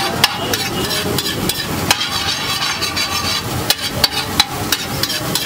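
Steel spatula striking and scraping a large flat iron griddle (tawa) while chopping and stirring a frying egg mixture. Sharp irregular clanks come about two a second over a steady sizzle.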